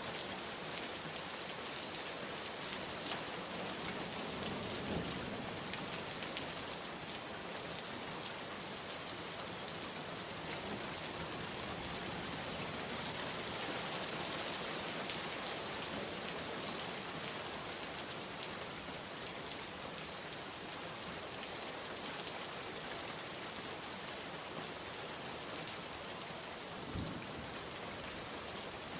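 Steady rain, falling evenly, with scattered individual drops ticking on a surface.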